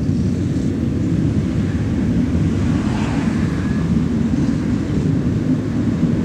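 A steady low rumble with no clear pitch, which the recordist takes for a mysterious rumbling that sounds nothing like a jet. A few faint bird chirps sound over it.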